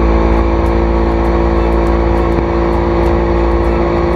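Boat engine running steadily at cruising speed, with the rush of the wake and a low wind rumble.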